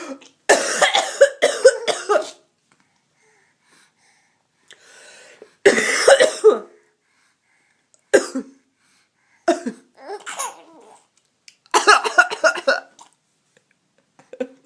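A woman coughing in several separate fits, and a baby laughing at the coughs.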